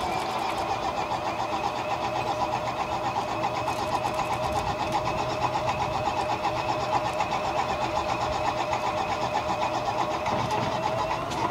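Supermarine Spitfire Mk XIV's starting system running before its Rolls-Royce Griffon V12 engine start: a steady, fast-pulsing mechanical whine. Near the end the propeller begins to turn over slowly as the engine is cranked.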